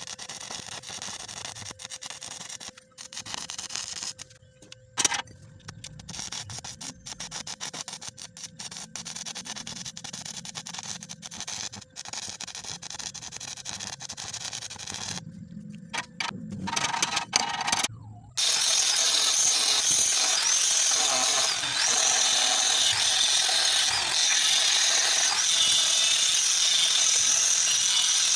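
Welding arc crackling in bursts, stopping and restarting several times as the gap is filled. About two-thirds of the way through, a louder power tool starts and runs steadily.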